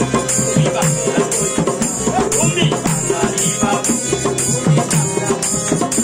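Live Bengali folk music on harmonium, dholak and tambourine: the harmonium holds steady chords while the drum and tambourine jingles keep an even beat, with a voice singing over them.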